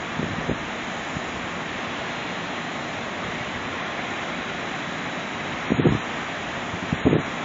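Wind blowing across the microphone: a steady rushing hiss, with two brief buffets about six and seven seconds in.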